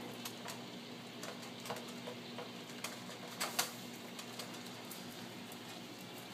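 Miniature Pinscher puppies scuffling at play, their claws and paws making irregular light clicks and taps, with a couple of louder taps about three and a half seconds in.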